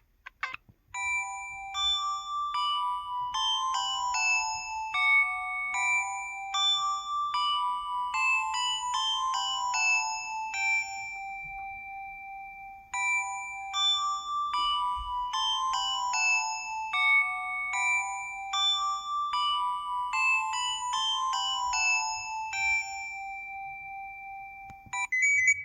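MS700 mobile phone ringtone: a melody of quick notes that starts about a second in and repeats its phrase about halfway through.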